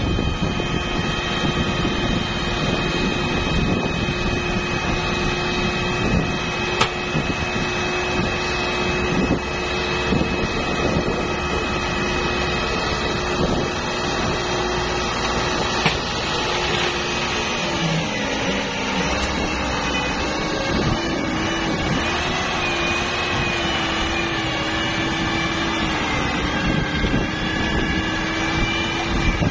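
Massey Ferguson tractor's diesel engine running steadily while powering the hydraulic ram that tips a heavily loaded sand trolley. The engine note sags and wobbles briefly about eighteen seconds in, then steadies again.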